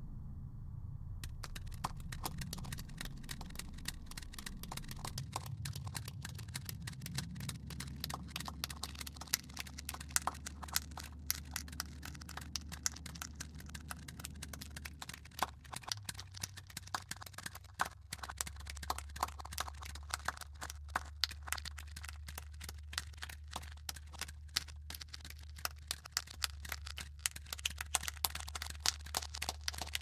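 End-credits score and sound design: a low, steady drone under dense crackling and sharp clicks. The crackle starts about a second in and gets spikier toward the end.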